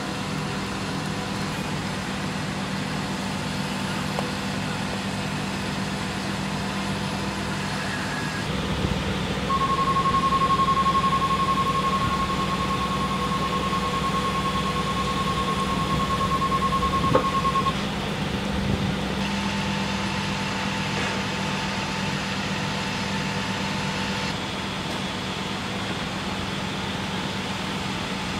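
Steady low hum of an idling vehicle engine, with a steady high-pitched tone for about eight seconds in the middle and a single sharp pop near its end.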